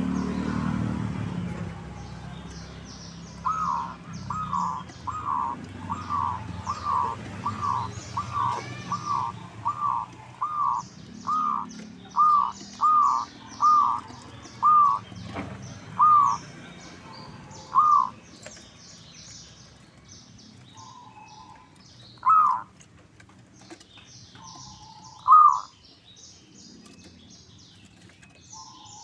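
Zebra dove (perkutut) cooing a long run of short, evenly repeated notes, about one every 0.7 seconds, that breaks off into a few scattered coos in the second half. Small birds chirp high and thin throughout, and a low rumble fades out in the first couple of seconds.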